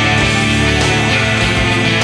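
Late-1980s grunge rock band playing a loud instrumental passage: electric guitars over a steady bass, with no singing.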